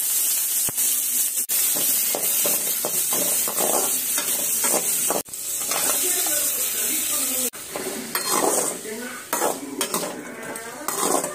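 Chopped onions and tomatoes sizzling in hot oil in a metal pan, stirred with a metal slotted spoon that clatters against the pan. The sizzle cuts off and resumes abruptly a few times.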